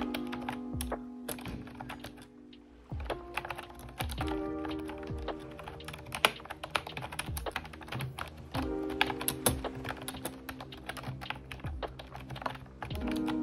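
Continuous typing on an Ajazz keyboard with round, typewriter-style keycaps: a quick, uneven patter of key clicks, over background music.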